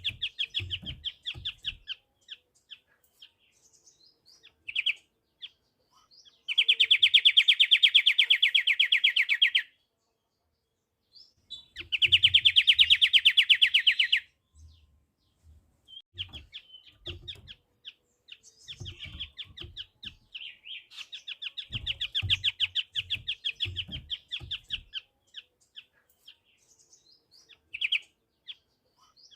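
Pied triller (kapasan kemiri) singing: rapid, fast-pulsed trills of about three seconds, two loud ones a few seconds apart, then a looser run of trilling and short chirps. Soft low thumps come in now and then.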